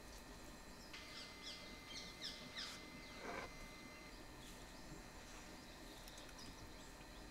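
Faint outdoor ambience with a bird calling in a quick run of short, falling notes, about five or six in a row, starting about a second in and ending with one longer downward sweep.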